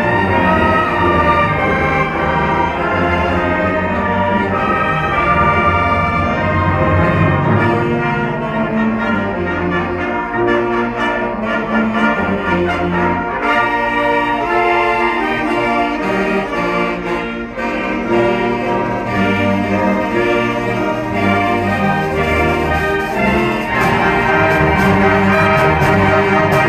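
School concert band playing a medley of Christmas carols live, with the brass to the fore. The sound grows fuller near the end, with sharp percussion strokes added.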